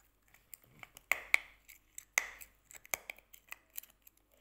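Candy necklace beads cracking and crunching between teeth in a series of sharp clicks, the loudest about one and two seconds in.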